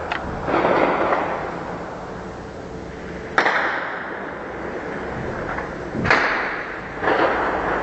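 Gunshots fired in the streets, about five sharp reports at irregular intervals of one to three seconds, each trailing a long echo off the surrounding buildings.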